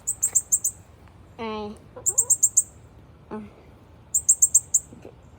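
A bird chirping in quick high-pitched trills of about five notes each, repeated about every two seconds.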